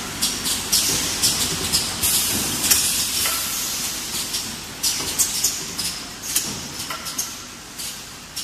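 Automatic bottle-filling line running, its pneumatic filling heads letting out short hisses of air about two or three times a second, with a longer hiss about two seconds in, over steady machine noise.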